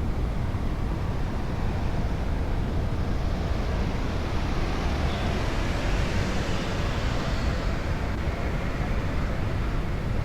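Wind buffeting a moving action-camera microphone, a steady low rumble with a rushing noise that swells about halfway through and then fades.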